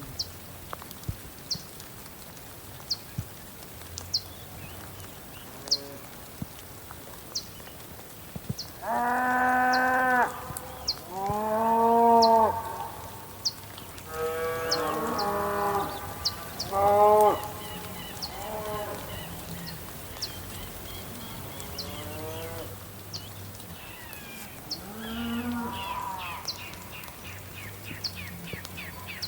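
Cows mooing, around six long calls one after another through the middle stretch, the loudest two close together. Underneath runs a steady rain hiss and a bird's short high chirp repeated about once a second.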